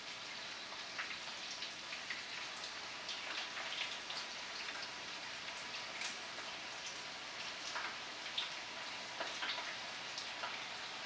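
Battered chicken pieces deep-frying in hot oil: a steady sizzle with frequent small crackles and pops.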